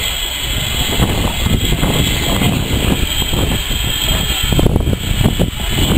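Steam tank engine dressed as Thomas the Tank Engine moving slowly, heard as a loud, steady low rumble.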